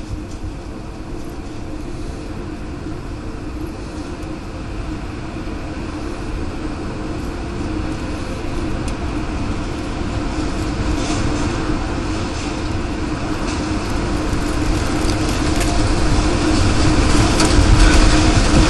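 Tornado wind, a continuous roar that grows steadily louder as the tornado closes in, with scattered sharp knocks and cracks of debris in the second half.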